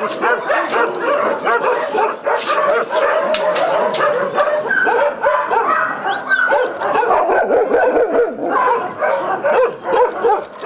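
A pack of kennel dogs barking and yelping together, many voices overlapping in a continuous chorus.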